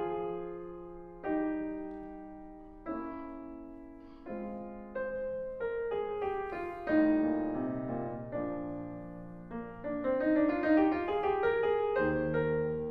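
Background piano music. Slow struck chords ring and die away at first, then give way to quicker, busier runs of notes in the second half.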